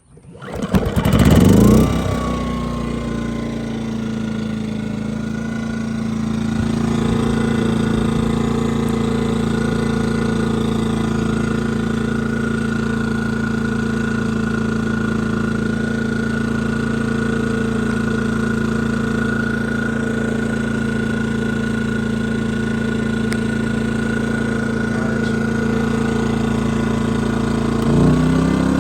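Pulsar PG2300iS inverter generator's small four-stroke engine starting from a cord pull, revving up in the first two seconds and settling into a steady run. About seven seconds in it grows louder, and near the end its pitch steps up.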